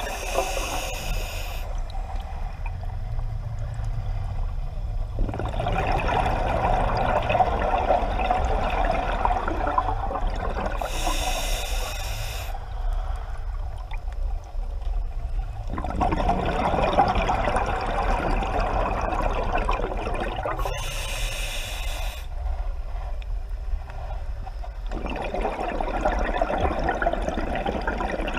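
Scuba diver breathing through an open-circuit regulator underwater: three short hissing inhales, each followed by several seconds of bubbling exhaust, about one slow breath every ten seconds.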